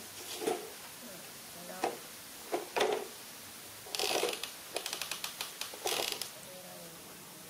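Baby monkey sucking milk from a large bottle: wet clicking and smacking in short irregular bursts, with a quick run of clicks about five seconds in.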